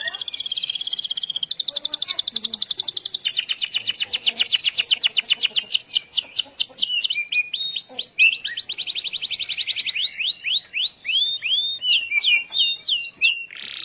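Canary singing continuously in fast rolling trills. These alternate with runs of quick notes that sweep downward in pitch, about midway and again in the last few seconds.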